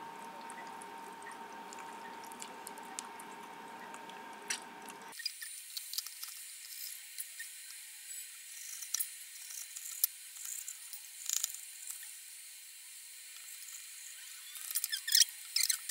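Kitchen knife cutting through a raw whole chicken: faint, scattered slicing and squelching of skin and flesh, with a cluster of louder crackling snaps near the end as the carcass is split and pulled apart.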